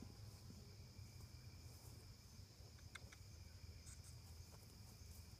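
Near silence with a faint, steady high-pitched insect trill from crickets, and a couple of faint ticks about three and four seconds in.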